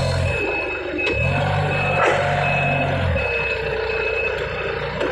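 Forklift warning beeper sounding short, high beeps a little under a second apart, over a low hum from the forklift that starts and stops in stretches as the lift control levers are worked.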